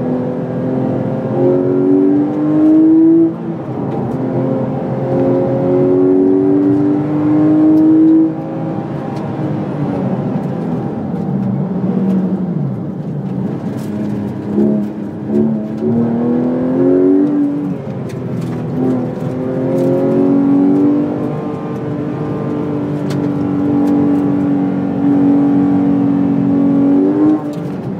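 Porsche 911 GT3 RS 4.0's 4.0-litre naturally aspirated flat-six, heard from inside the cabin, being driven hard. The engine note climbs in pitch under acceleration and drops back sharply several times at gear changes, with a lower, wavering stretch where the driver eases off for corners.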